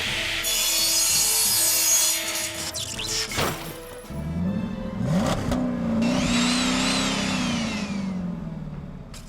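Background music with cartoon-style sound effects. A noisy swish runs through the first couple of seconds. From about four seconds in comes a low, engine-like drone that rises and falls, with a high whistling tone sliding downward over it.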